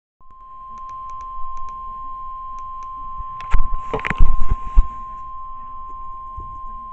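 NOAA Weather Radio 1050 Hz warning alarm tone: one steady high beep lasting about seven seconds, the alert that comes before a warning message is read. Scattered clicks over it, with a louder cluster of knocks in the middle that is the loudest sound.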